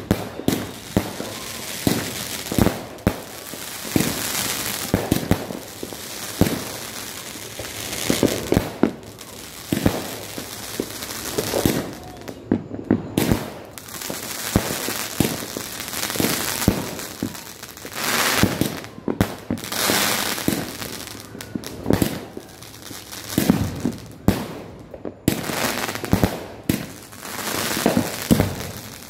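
Multi-shot fireworks cake firing shot after shot: a continuous run of launch thumps and sharp bursting bangs, with brief pauses about twelve and twenty-five seconds in.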